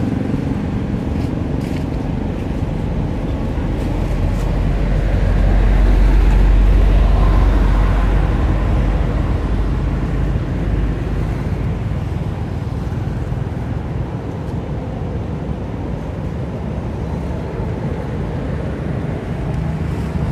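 Steady low rumble of road traffic, swelling to its loudest about six seconds in as a vehicle passes, then easing off.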